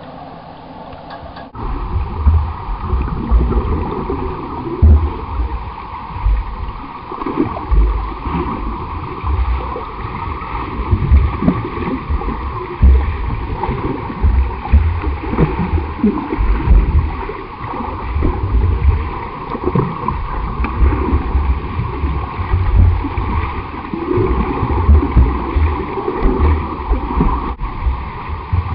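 Swimmers splashing in a pool: irregular churning and sloshing water with many low thuds, starting abruptly about a second and a half in after a quieter steady hum.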